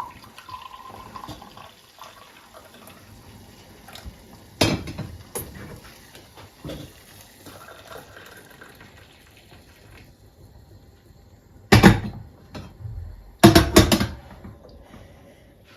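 Water running faintly at a kitchen sink for about ten seconds, with a couple of knocks. Then several sharp clatters of dishes near the end.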